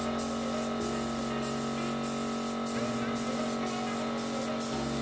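Gravity-feed air spray gun hissing as it sprays primer onto the fibreglass hull, the hiss broken by brief gaps about twice a second. Background music plays underneath.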